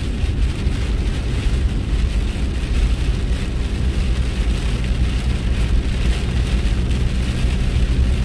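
A car driving on a wet road in rain, heard from inside the cabin: steady low engine and tyre noise, with a hiss of rain and road spray over it.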